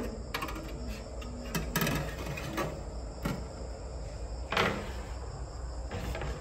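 Metal cooking racks being slid into and knocked against the stainless-steel rails of a Kalpen K15 air fryer oven: about ten irregular clinks and knocks, the loudest a little under two seconds in and just past halfway.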